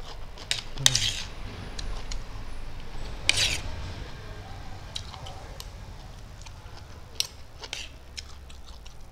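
Metal spoons clinking and scraping on a plate of fried rice: a handful of separate clicks spread out, with a longer scrape about three seconds in.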